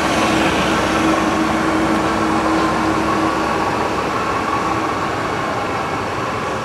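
Hwacheon HL 580 centre lathe running with a steady mechanical hum and a faint whine. One of the tones drops away about five seconds in.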